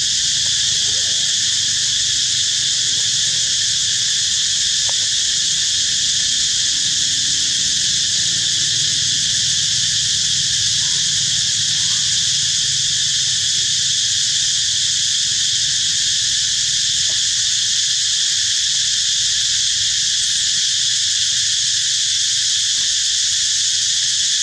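Insects calling in a dense, steady, high-pitched chorus without a break.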